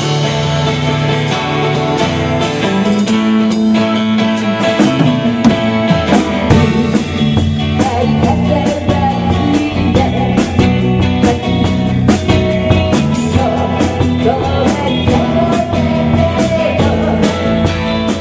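Rock music from a band: guitar and bass notes over a drum kit, the drums settling into a steady beat with fuller low end about six seconds in.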